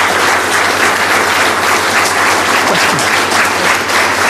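Large seated audience applauding steadily: dense, even clapping from many hands.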